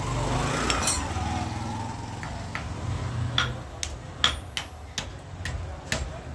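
Hammer blows on metal, a quick uneven series of sharp ringing strikes at about two a second, starting about halfway through after a low rumble.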